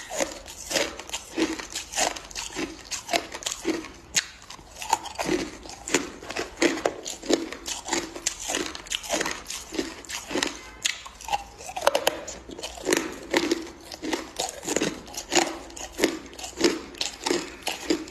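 A person chewing hard crushed ice: a steady run of sharp, irregular crunches, two or three a second.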